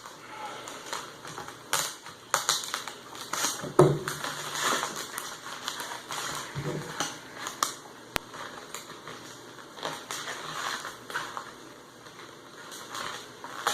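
A dull razor blade scraping and cutting through heavily taped packaging, with irregular clicks and crackles of tape and cardboard.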